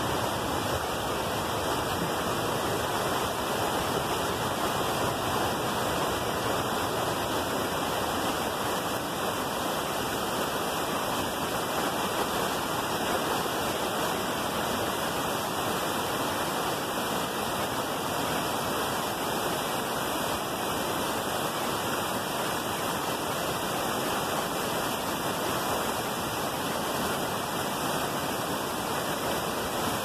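Waterfall cascading over rocks: a steady, unbroken rush of white water heard close up.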